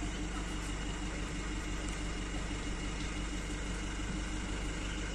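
Bus engine idling steadily while it warms up before setting off, a low even hum with a steady drone.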